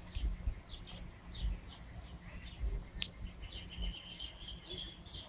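Small birds chirping in quick short notes, with a longer warbling song starting about three seconds in, over a low uneven rumble on the microphone.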